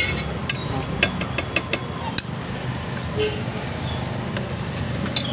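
Steel spoons clinking sharply against steel bowls and containers, a scattered series of clicks as corn is stirred and masala spooned in, over a steady low rumble of street traffic.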